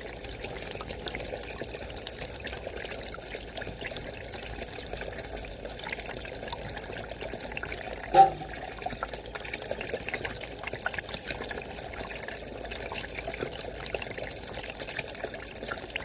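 Water running and trickling steadily over the mats of a small cleanup sluice as gold-bearing material is washed through it. One brief sharp sound stands out about eight seconds in.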